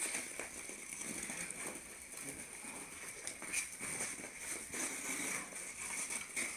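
Ice skate blades scraping and tapping on an iced-over yard, in faint irregular strokes, with a dog's paws scuffling on the ice alongside.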